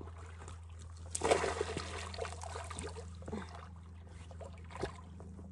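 A splash about a second in as a rope stringer holding two black bass goes into the lake shallows, followed by faint trickling water and a few small knocks.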